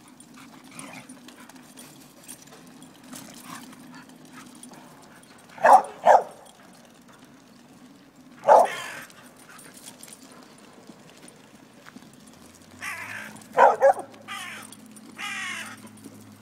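Small white dog barking up at a crow in a tree: a quick double bark about six seconds in, a single bark near eight and a half seconds, and another double bark near fourteen seconds, with a few longer, harsher calls around them near the end.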